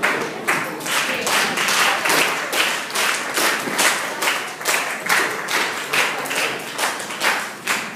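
A group of people clapping in unison in a steady rhythm, about two claps a second.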